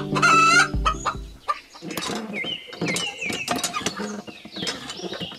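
Chicken clucking: a wavering call at the start, then a run of short rising clucks, with scattered light clicks.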